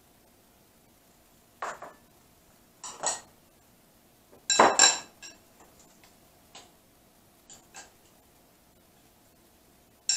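A metal utensil clinking against a glass mixing bowl while cubed salmon is stirred in its marinade. There are several separate clinks, some with a short glassy ring, and the loudest comes about five seconds in.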